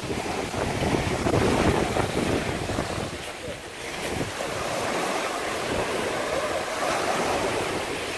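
Wind buffeting the microphone over a steady rush of sea and surf against the rocks below. The gusts are strongest in the first few seconds and then settle.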